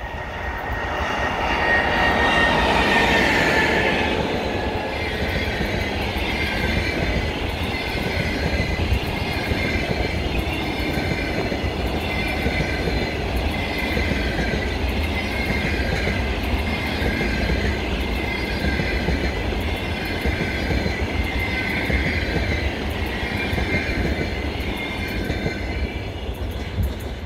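EP20 electric locomotive passing close by about three seconds in, its high whine falling in pitch as it goes past. A long train of double-deck passenger coaches follows, rolling by with a steady rumble, wheel clatter and a high squeal from the wheels.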